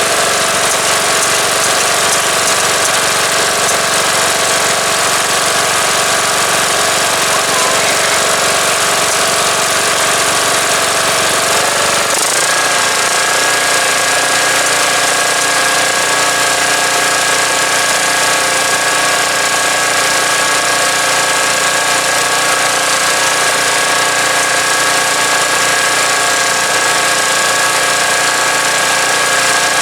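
Turf-Power lawn tractor's small engine running steadily; about twelve seconds in, its note changes abruptly and then holds at the new setting.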